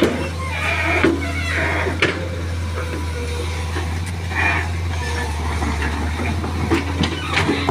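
Wheeled excavator's diesel engine running with a steady low drone while the bucket works the soil, with a few knocks in the first couple of seconds.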